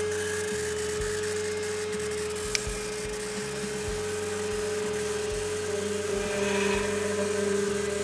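Homemade CNC router's spindle running with a steady whine as its downcut bit mills wood, growing louder about six seconds in. A single sharp click sounds about two and a half seconds in.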